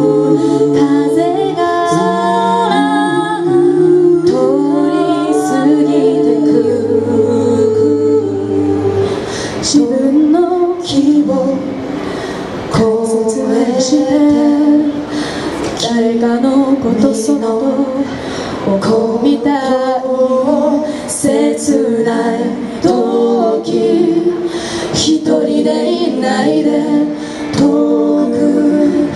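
Mixed four-voice a cappella group singing in close harmony, four voices with no vocal percussion and no bass line. The voices hold chords that move in steps every second or so, with a low held note under them partway through.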